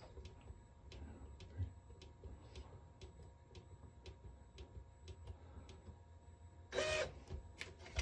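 Faint clicks of the feed button on an Epson TM-T88V thermal receipt printer, pressed again and again in a steady run to step through its setup menu. Near the end there is a short, louder sound from the printer.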